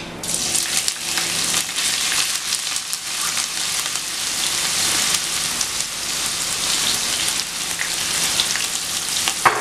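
Chopped onions sizzling in hot oil as they are tipped into the pan: a dense crackling fry that starts abruptly just after the start and carries on steadily while they are stirred.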